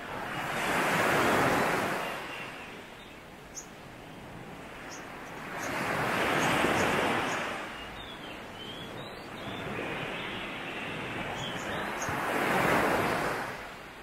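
Sea waves breaking on a beach three times, each one rising and falling over about two seconds, with faint high bird chirps between the breakers.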